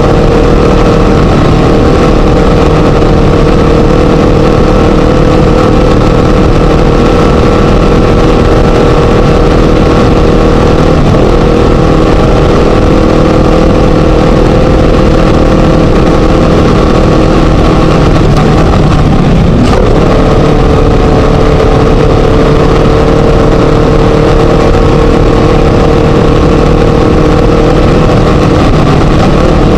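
Class 1 desert race buggy's Scat engine running hard at a steady high pitch under the car's own throttle. About two-thirds of the way in the pitch briefly breaks and drops, then climbs back and holds steady, as with a lift or a gear shift.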